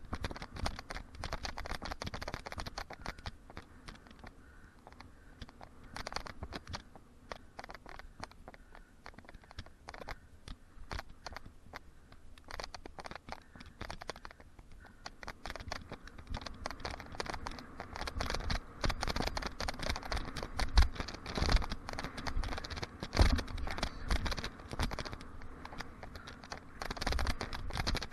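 Mountain bike rolling over dirt jump trails: tyres crunching on gravelly soil while the chain and frame rattle, busier and louder in the second half with a couple of sharp knocks from jumps and landings.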